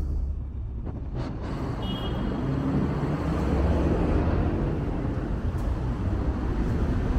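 City street traffic: the steady low rumble of vehicle engines and tyres on the road, with one engine's hum growing a little louder about halfway through.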